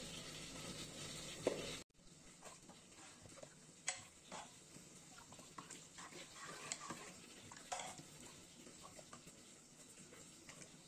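A spoon stirring spinach and spice paste in a steel pot, with scattered light scrapes and taps of the spoon against the metal. It starts about two seconds in, after a steady hiss and a single knock that cut off abruptly.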